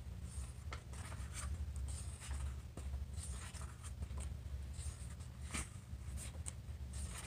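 Soft, irregular rustling and scraping handling noise, a dozen or so short scratches spread unevenly, over a steady low hum.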